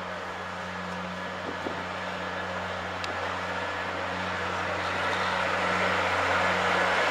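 Narrow-gauge diesel locomotive running as it hauls a train of coaches slowly toward the listener: a steady low engine drone that grows louder as it approaches. A single sharp click about three seconds in.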